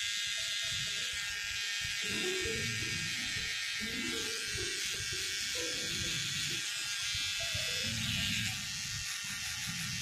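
Electric hair clipper running with a steady high buzz while it trims hair around the ear and sideburn.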